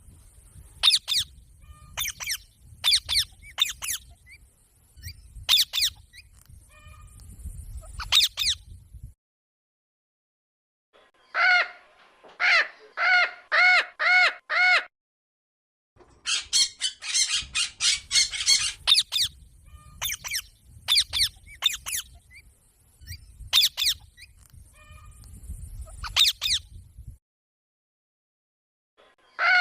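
Parrot calling: sharp, high chirps in quick runs, then a string of about six repeated harsh squawks, then a dense burst of chattering, then sharp chirps again. The calls come in separate stretches broken by sudden silent gaps, with a low rumble under the chirps.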